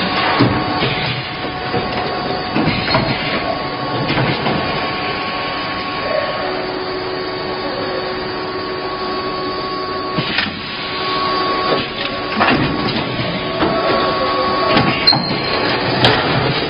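High-speed plastic bottle blow molding machine running: a steady mechanical hum and rush with a few steady tones, broken every few seconds by sharp clunks.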